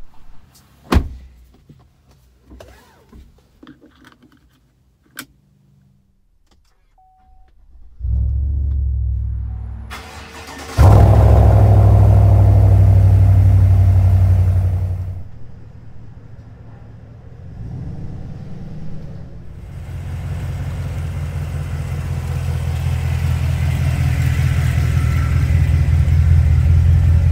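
A lifted Chevrolet Silverado's V8 engine starting after a few light clicks, catching with a loud burst of revs and then settling. Later it runs steadily, slowly growing louder toward the end.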